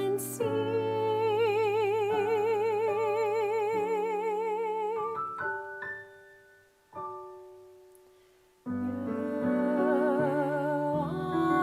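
Instrumental keyboard music with piano-like tones. A held chord with a wavering top voice fades out about five seconds in, and a single note rings and dies away. After a short quiet gap, a new passage begins a little under nine seconds in.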